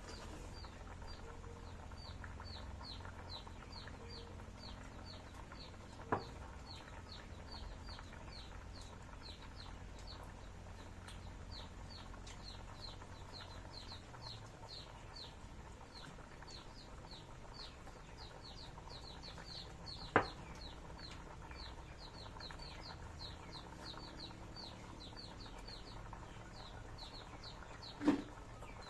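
High, short chirps falling in pitch, repeated several times a second in long runs, from a small animal; a few sharp knocks sound about six, twenty and twenty-eight seconds in.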